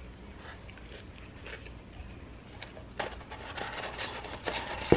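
Paper fast-food packaging being handled: light crinkling and rustling from about three seconds in, with a sharp tap near the end.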